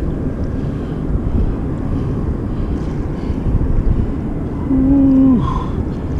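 Steady low rumbling outdoor background noise, then a man's drawn-out 'ooh' of admiration about five seconds in, held level and falling off at the end.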